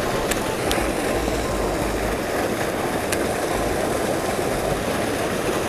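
Steady rush of spillway water gushing from an outflow and churning into the creek pool, with low wind buffets on the microphone that come and go and a few faint ticks.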